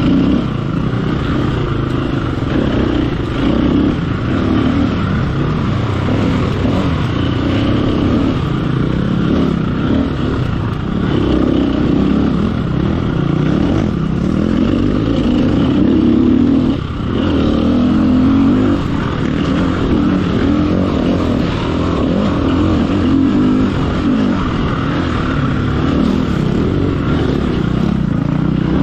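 Off-road motorcycle engine running hard under constant throttle changes, the revs rising and falling continually, with a brief dip in power about seventeen seconds in.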